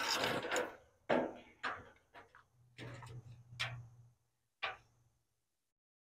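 A run of short handling knocks and clicks from work on the bed pieces, about five separate strikes over four seconds, with a low steady hum under the later ones.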